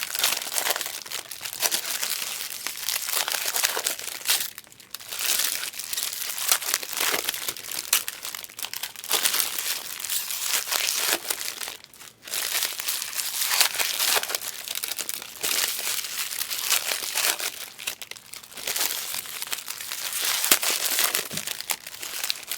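Foil trading-card pack wrappers crinkling as packs are opened and handled, nearly continuous with a few brief pauses.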